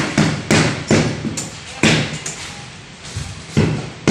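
Hammer blows striking at an irregular pace, each ringing out in a bare, echoing room, with a pause of over a second after about two seconds.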